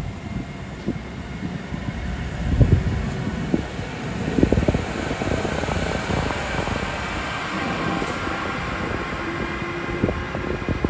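Train running through the station with a steady rushing rail noise, with gusts of wind buffeting the microphone.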